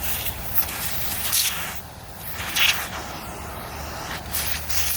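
Several short blasts of compressed air hissing through a clogged vacuum cleaner part to clear out dust and debris, about one every second or so.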